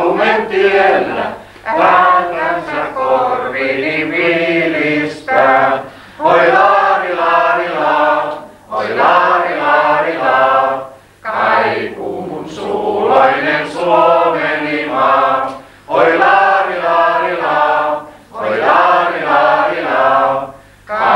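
A woman singing unaccompanied, in sung phrases of a few seconds with short breaks for breath between them.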